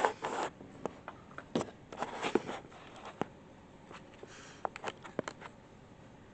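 Handling noise from a camera being gripped and set in place: a scatter of sharp clicks and knocks with brief rustling, thinning out after about five seconds to quiet room tone.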